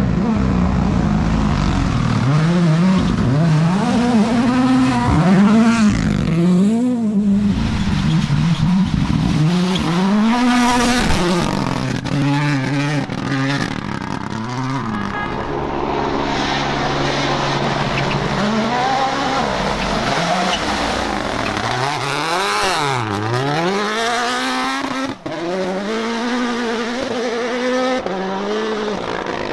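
Rally car engines revving hard, their pitch repeatedly climbing and dropping with gear changes and lifts as the cars drive a stage. There is a sudden break in the sound about 25 seconds in.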